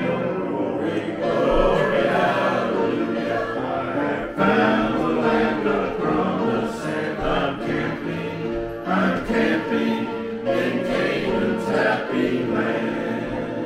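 Music: a choir singing, many voices together.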